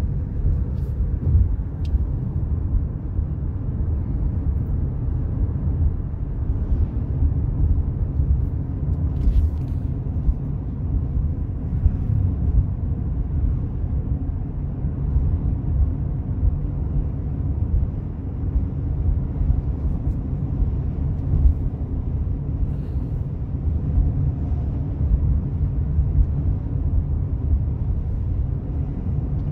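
Steady low rumble of tyre, road and engine noise heard inside a car driving at highway speed.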